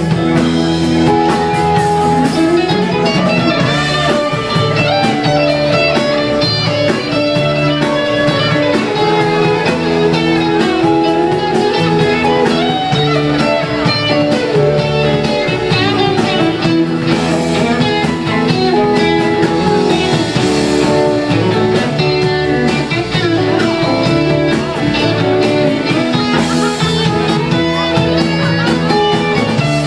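Live rock band playing a guitar-led instrumental passage, with guitar lines over bass and drums.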